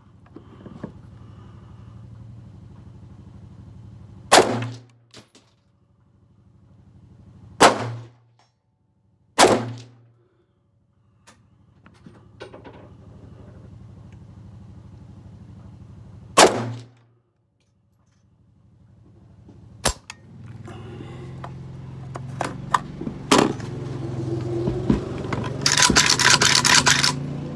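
Mak 90 AK-pattern semi-automatic rifle firing four single 7.62×39 shots at uneven intervals; the rifle has been failing to feed and cycle reliably. Near the end the action is worked by hand with a metallic rattle.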